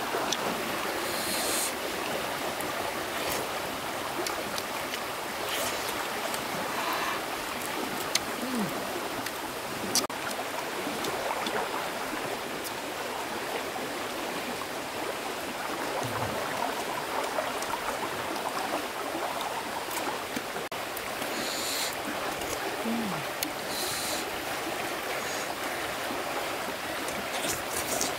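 A steady rushing noise like running water, with a few small clicks and ticks over it.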